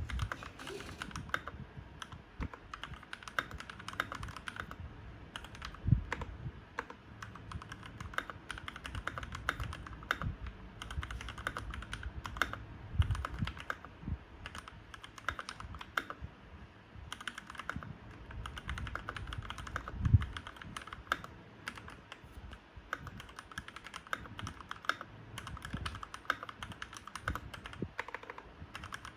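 Fast continuous typing on a Keychron K12 60% mechanical keyboard with red switches: a steady patter of key clicks, with a few louder knocks now and then.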